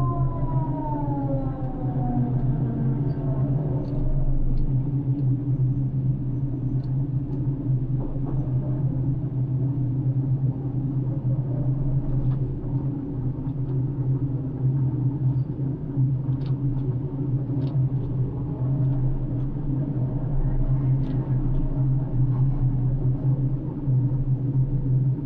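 Ship crane's engine running with a steady low drone, heard from inside the operator's cabin. A higher whine glides downward and fades out in the first few seconds, and a few faint clicks come through.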